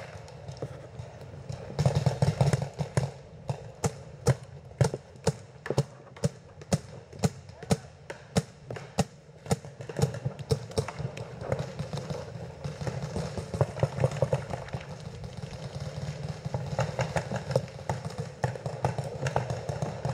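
Running footsteps with the wearer's gear bouncing: a series of sharp thuds, about two a second, strongest in the first half.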